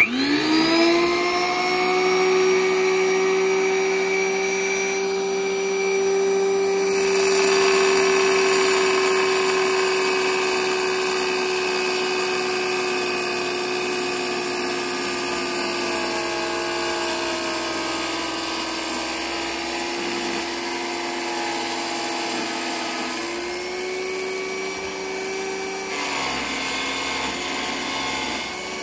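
Electric wet tile saw starting up, its motor whine climbing quickly to a steady pitch and then running on. About seven seconds in a higher hiss joins it, and near the end the pitch sags briefly before recovering.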